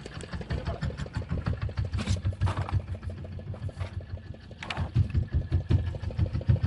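Fishing boat's engine running steadily with a rapid, even low thudding. A few short bursts of noise stand out over it about two seconds in and again past the middle.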